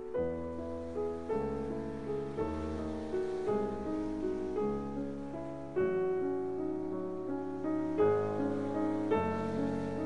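Background piano music, slow, with a new note or chord about once a second.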